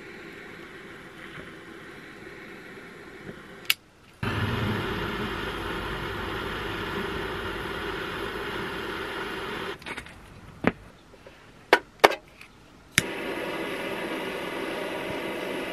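Butane jet torch lighter burning with a steady hiss, louder for a stretch from about four seconds in. It stops about ten seconds in, a few sharp clicks of its igniter follow, and the flame catches again and hisses on.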